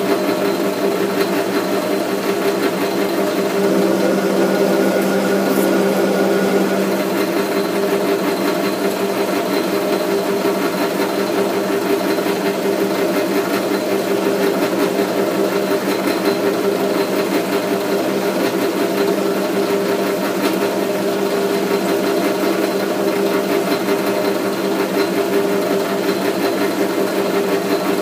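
South Bend lathe running steadily under power while single-point threading a 1-inch UNS thread: an even mechanical hum of motor and gearing that holds the same pitch throughout, a little louder for a few seconds early on.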